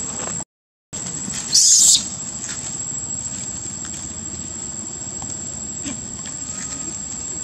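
Outdoor ambience with a constant high, thin insect whine over steady background noise. The sound drops out completely for about half a second early on, and a brief loud high hiss comes shortly after, near two seconds in.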